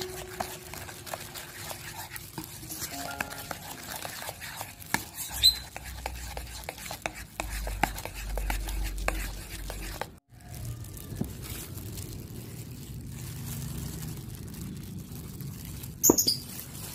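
Metal spoon stirring a runny egg, sugar and oil batter in a bowl, with many light scrapes and clinks against the bowl. A short break comes about ten seconds in, and near the end there is one sharp clink.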